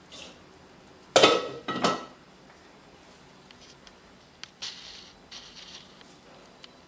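Kitchenware clattering: two sharp clinks a little over a second in, each with a short ring, followed by faint light handling noises.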